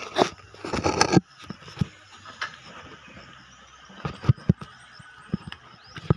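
Handling noise from a phone carried by someone walking: loud rubbing and rustling for about the first second, then scattered soft knocks of footsteps and the phone being jostled.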